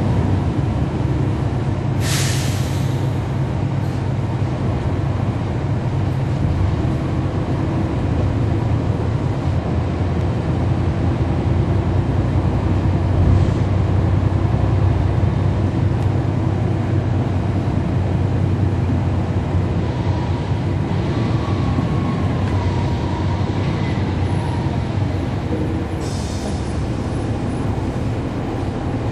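Cummins ISL9 diesel engine of a 2011 NABI 40-SFW transit bus running steadily, heard from on board. A short burst of air hiss comes about two seconds in and again near the end.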